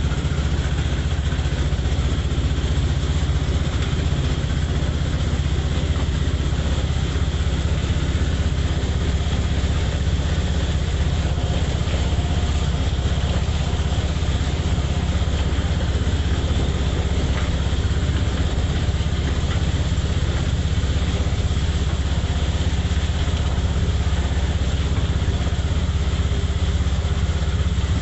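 Motor tricycle's motorcycle engine running steadily while riding along, with a steady hiss over it.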